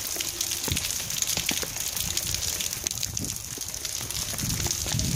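Heavy rain pouring down, with a steady rush of water and a dense patter of drops splashing on wet stone paving. A few low thuds sound through it, one about a second in and more near the end.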